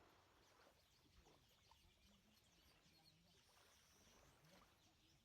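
Near silence, with only faint, indistinct background sound.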